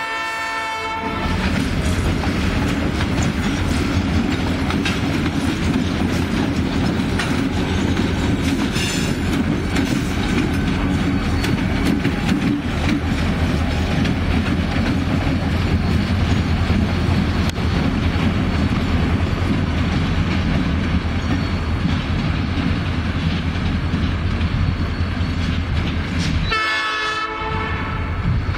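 Diesel locomotives' air horn ends about a second in. Then comes the loud, steady rumble of the locomotive engines close by, with their wheels clattering over the rail joints. A horn sounds again near the end.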